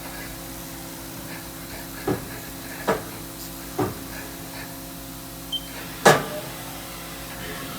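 Haas Super Mini Mill 2 CNC vertical machining center humming steadily under power, with four short mechanical clunks and whirs about two, three, four and six seconds in, the last the loudest.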